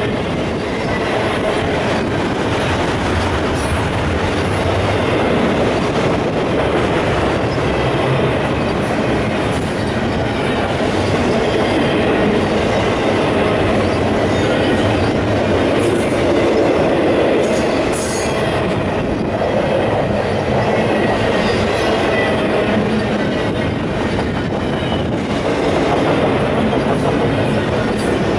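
Canadian Pacific double-stack intermodal freight train's well cars rolling past close by: a steady rumble of steel wheels on rail with a few clanks and a faint thin squeal from the wheels.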